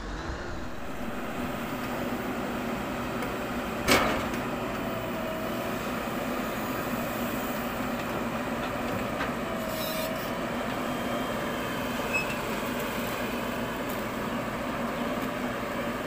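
A JCB 4DX backhoe loader's diesel engine runs steadily under load while the backhoe arm digs and lifts soil. A sharp knock comes about four seconds in, and two brief whines come later.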